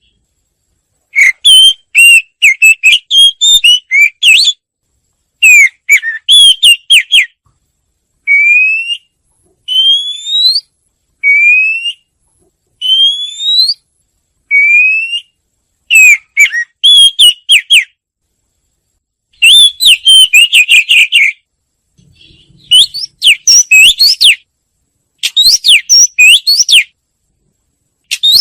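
Wagtail (chìa vôi) song: bursts of quick, sharp twittering notes, with a run of five rising whistled notes midway, each phrase followed by a short pause.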